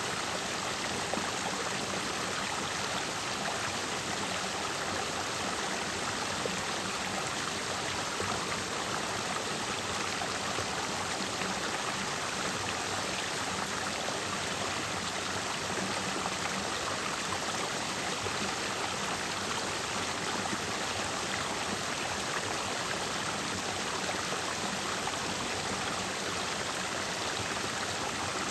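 Clear mountain stream flowing over and between rocks: a steady rush and splash of water.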